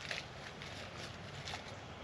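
Faint handling noises: a couple of soft, brief rustles or scrapes as fire-starting materials are arranged in a small camp stove.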